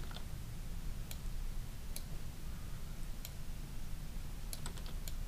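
About eight sharp clicks from a computer mouse and keyboard, scattered and bunched near the end, over a low steady hum.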